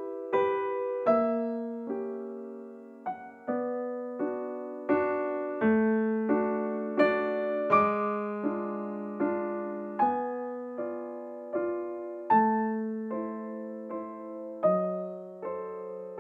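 Background music: a slow, gentle piano tune, notes struck about once or twice a second and left to fade.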